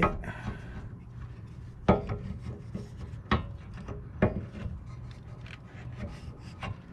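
A brake caliper scraping and rubbing against the new pads and caliper bracket as it is worked by hand down over them, with a few sharp metal clicks as it seats.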